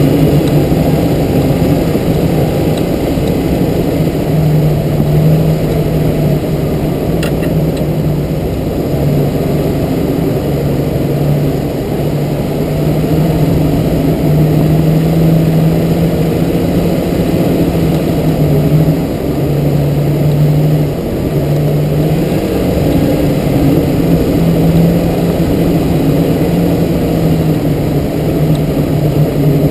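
Jeep TJ engine running steadily at low revs as the Jeep drives slowly along a dirt trail, the note wavering only slightly, with a brief click about seven seconds in.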